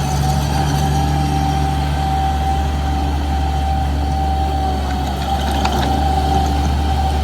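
Bobcat MT100 walk-behind loader's engine running steadily at idle, with a steady high whine over the engine hum.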